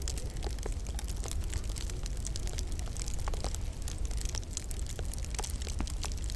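Wood fire crackling in a log burner: many small sharp pops and snaps at irregular intervals over a steady low rumble.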